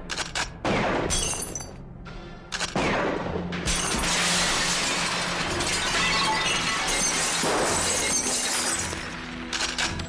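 Film action sound: a few sharp shotgun blasts, then from about four seconds in a long crash of a large glass window shattering and showering down, with music underneath.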